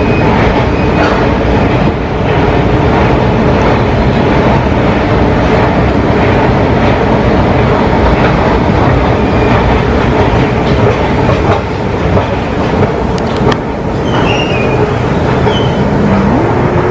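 New York City subway train running through the station: a loud, steady rumble with wheels rattling, and a few brief high squeals in the second half.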